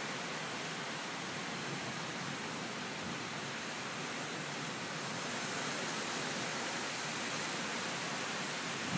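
Steady rush of a thunderstorm's gusting wind and rain, heard through a window, with no separate knocks or tones.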